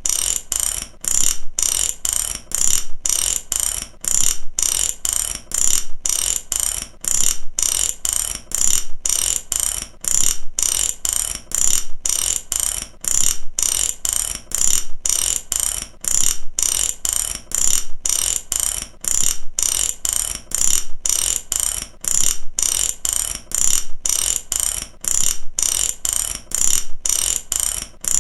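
A mechanical ratchet (matraca) clicking in quick, even runs of pawl clicks, about two runs a second, bright and sharp.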